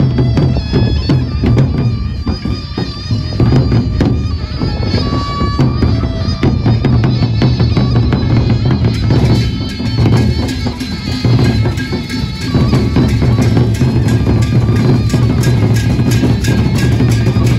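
Gendang beleq ensemble playing: large Sasak barrel drums beaten in a steady pulse under a wind instrument's held, wavering high notes. About nine seconds in, the cymbals come in thick and fast and the music gets busier.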